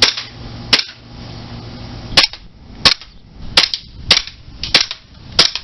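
KWA ATP green gas blowback airsoft pistol firing semi-automatic single shots: about seven sharp cracks, one every half second to a second.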